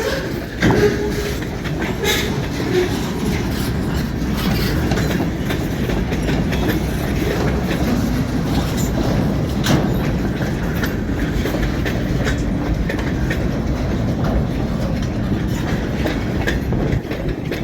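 Freight cars of a passing train rolling by, a steady low rumble with the clickety-clack of wheels over rail joints.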